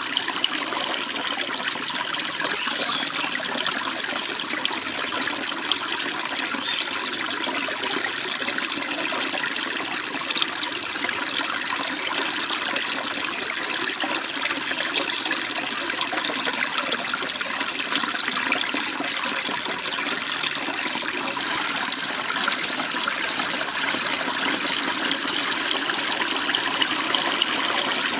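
Stream water running over small falls and rocks, a steady splashing and babbling rush.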